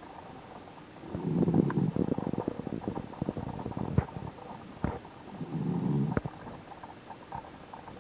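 A sleeping pet snoring: two snores about four seconds apart, each lasting roughly a second, with a few short clicks between them.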